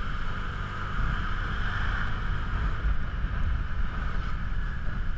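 Motor scooter riding along the road: its engine running steadily, mixed with wind rush on the microphone mounted on the bike.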